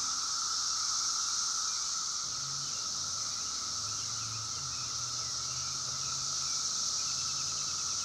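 Chorus of Brood X periodical cicadas: a steady, unbroken high drone with a lower steady buzz beneath it.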